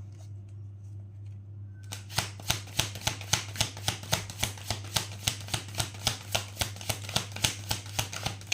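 Tarot cards being shuffled by hand: a quick, even run of card slaps and clicks, about five a second, starting about two seconds in.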